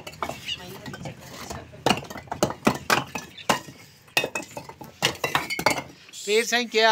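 Fired clay bricks clinking and knocking against each other as they are lifted off a loose stack and set down by hand: an irregular string of sharp clacks. A man's voice comes in near the end.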